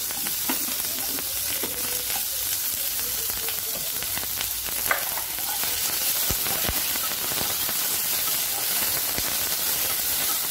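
Onion, tomato and drumstick pieces sizzling in hot oil in a kadai, with a steel slotted ladle clicking and scraping against the pan as they are stirred. One knock about five seconds in is sharper than the rest.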